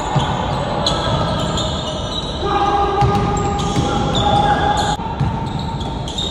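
Basketball bouncing on a court during a pickup game, with players' voices over it.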